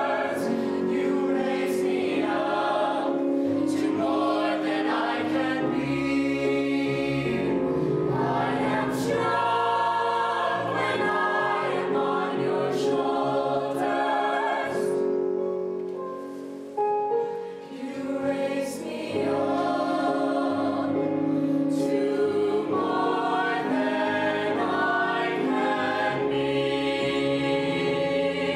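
Show choir singing together with instrumental accompaniment. The sound drops off briefly about two-thirds of the way through, then comes straight back.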